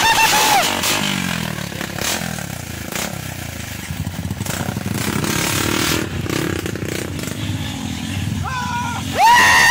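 Dirt bike engine revving high, then the revs fall away about a second in and it runs low and uneven for several seconds, before revving up sharply again near the end.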